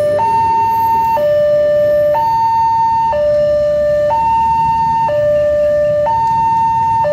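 Railway level-crossing warning alarm: an electronic two-tone signal alternating between a low and a high tone, each held about a second, repeating steadily. A low rumble lies underneath.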